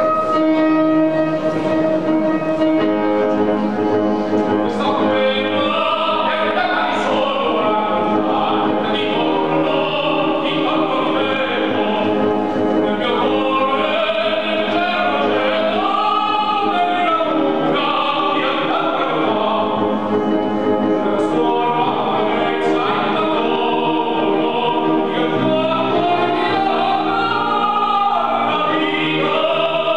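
Grand piano introduction, then a man sings in full operatic voice with a wide vibrato over the piano accompaniment, his voice coming in a few seconds in.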